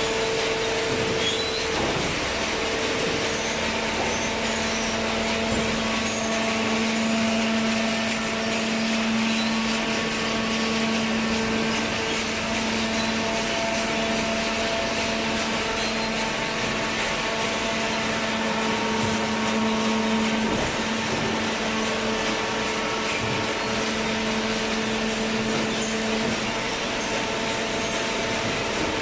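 Hydraulic cardboard baler running: a steady machine hum with a held low tone over an even hiss.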